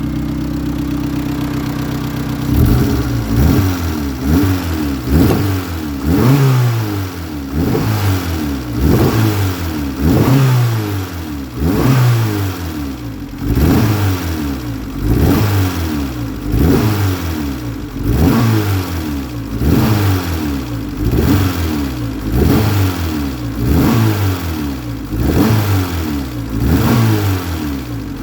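Turbocharged Honda D-series four-cylinder idling steadily, then blipped again and again, about once every second and a half, each rev rising quickly and falling back to idle. The engine is misfiring and backfiring through the exhaust, which the owner puts down to an exhaust leak.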